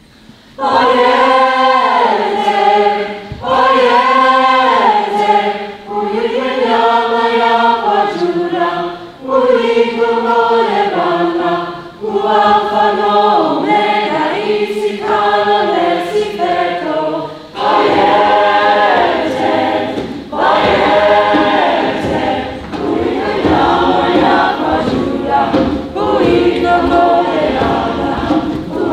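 A mixed choir singing in phrases a few seconds long, with short breaks between them. It comes in about half a second in.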